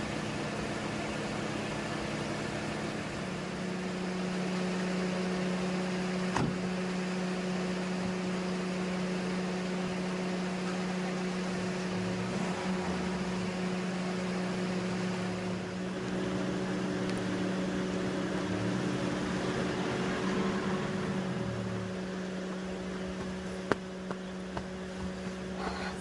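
A car engine running steadily, a constant hum, with one sharp click near the end.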